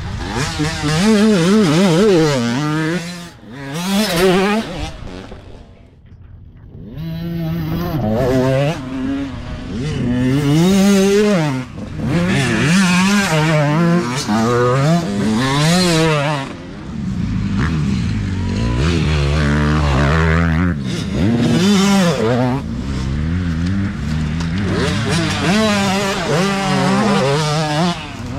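Several youth dirt bikes ride past one after another, their engines revving up and dropping back again and again as the riders work the throttle through the trail. There is a brief lull about six seconds in.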